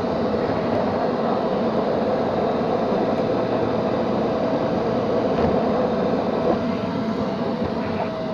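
Neato XV-21 robot vacuum running: a steady whirring drone from its fan and brushes, with a thin, steady whine running through it.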